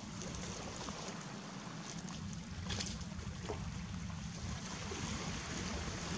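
Wind rumbling on the microphone over a steady outdoor hiss, with a few short, high calls from sand martins at the nesting colony, the clearest about three seconds in.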